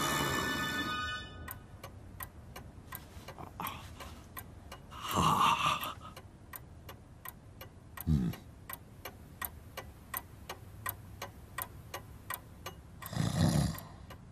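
A clock ticking steadily, about three ticks a second. Louder noisy sounds cut in near the start, about five seconds in, around eight seconds in and near the end.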